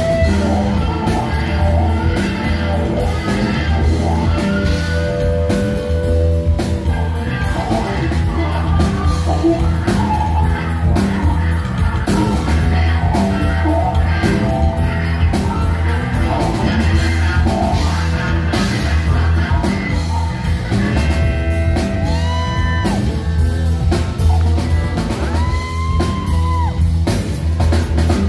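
Live electric blues band led by a Stratocaster-style electric guitar played loud through an amp, over bass and drums, with long bent notes held near the end.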